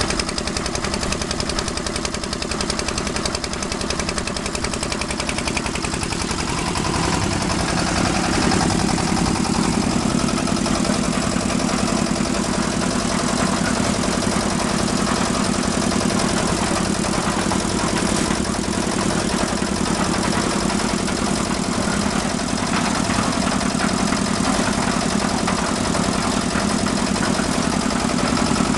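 Concrete mixer machine's engine running steadily with a rapid knocking beat, growing a little louder and fuller about seven to eight seconds in.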